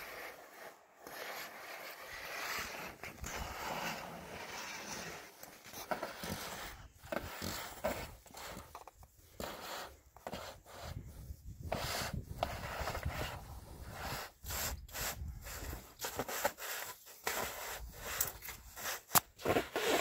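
Irregular scraping and rubbing of a climber's shoes, knee pads and clothing against the sandstone walls of an offwidth crack as he shuffles down it, with many short, sharper scuffs.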